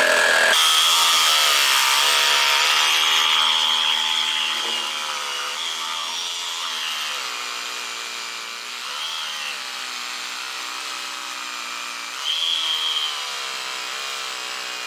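FLEX reciprocating saw cutting through a hardwood fence post just below ground level, thought to be black locust. The whine starts abruptly, is loudest in the first few seconds, and then runs on with its pitch dipping and recovering several times as the blade labours. The slow cut is down to the very hard wood, not the saw or the blade.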